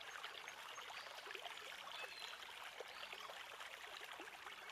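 A stream rushing and splashing over rocks, a steady faint water sound with a few faint high chirps now and then.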